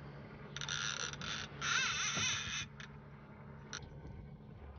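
Conventional fishing reel's clicker ratcheting in two fast buzzing runs as a hooked fish pulls line off, then stopping about three seconds in.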